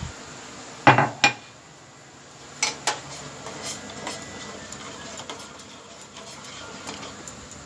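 A spoon clinking and scraping against a steel saucepan while milk tea is stirred: two sharp clinks about a second in, two more near three seconds, then lighter taps.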